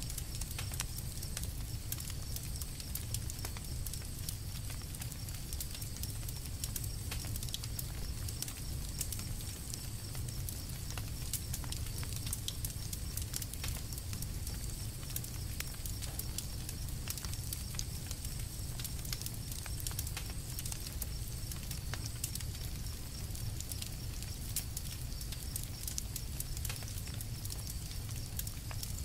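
Campfire crackling: a steady run of small snaps and pops over a low rumble.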